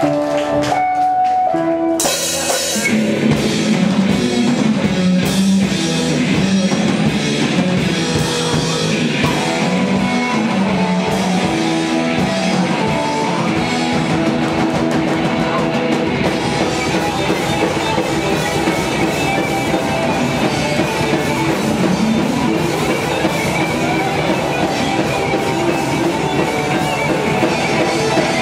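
A metal band playing live: a keyboard sounds a few held notes alone, then about two seconds in the drum kit and electric guitars come in and the full band plays on.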